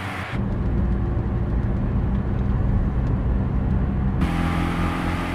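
Designed car sound effect of a car driving: engine and exhaust with tyre noise on a dry road. Just after the start the sound turns muffled and bass-heavy, like the engine heard from inside the cabin, and about four seconds in it opens up again with brighter tyre hiss.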